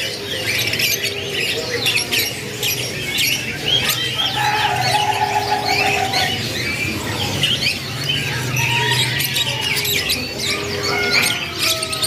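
Many caged domestic canaries chirping and twittering at once: a dense, continuous chorus of short, overlapping high calls.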